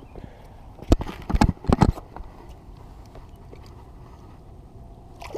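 A quick run of about six sharp knocks and thumps between one and two seconds in, over a steady low background noise.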